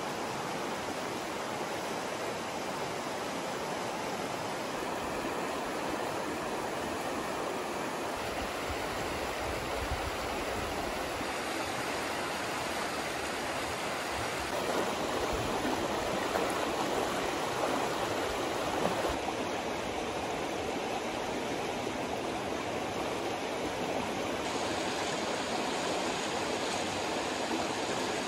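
Spring-fed creek rushing fast over rocks: a steady, full rush of flowing water whose tone shifts slightly a few times.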